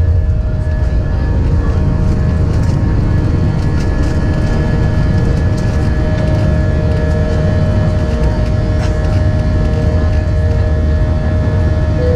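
Airbus A320's IAE V2500 turbofan engines heard from inside the cabin: a loud, steady low rumble with several steady whining tones held over it, with no change in level.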